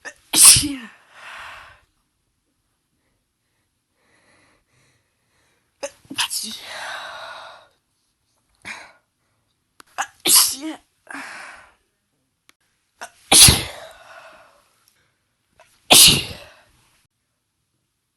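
A woman sneezing five times, several seconds apart, while she has a head cold. Each sneeze is a sharp, loud burst followed by a shorter, fainter trailing sound.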